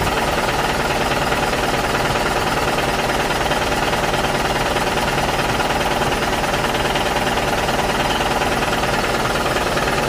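Simulated diesel truck engine idling with a steady, rapid clatter, the engine sound effect of a Huina 1573 remote-control dump truck.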